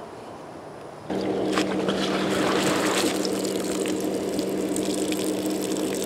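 An electric air pump switches on about a second in and runs with a steady hum and a rush of air, deflating an Intex Explorer K2 inflatable kayak.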